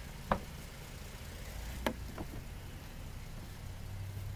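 2012 Chevrolet Traverse rear door being opened: a sharp click about a third of a second in, then two lighter clicks around two seconds, over a low steady rumble.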